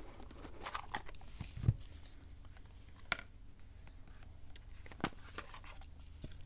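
A tarot deck box and its cards and guidebook being handled: scattered cardboard and paper rustles and light clicks, with a dull thump about a second and a half in.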